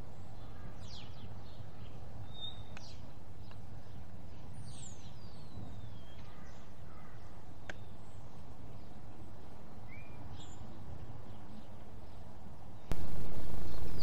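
Outdoor ambience: a steady low rumble with scattered bird chirps and calls, including one long descending whistle about five seconds in, and a couple of faint clicks. The background gets louder near the end.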